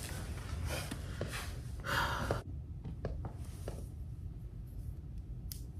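Notebooks being handled: paper and covers rustling, loudest about two seconds in, then a few soft knocks.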